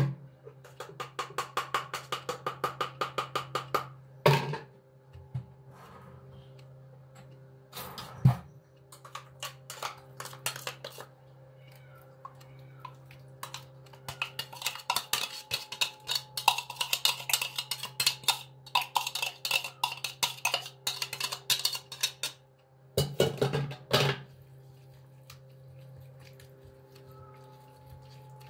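Glass jar and utensil clinking and scraping as a thick herb-garlic marinade is emptied onto raw chicken in a glass baking dish: quick runs of small clicks broken by a few sharper knocks.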